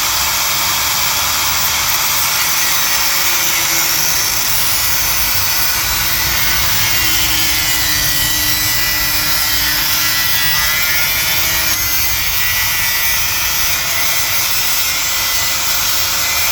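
Angle grinder cutting through a car's metal exhaust pipe, a steady loud whine and grind that holds without a break.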